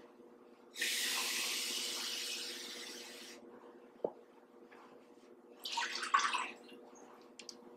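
Water poured into an Instant Pot's stainless steel inner pot for about two and a half seconds, stopping abruptly; a click follows, then a short clatter as something is set down in the pot. A faint steady hum runs underneath.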